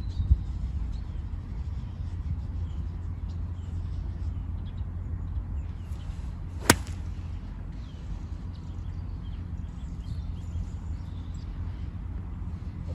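A pitching wedge striking a golf ball, a single sharp click about two-thirds of the way through. A steady low rumble and faint bird chirps lie beneath it.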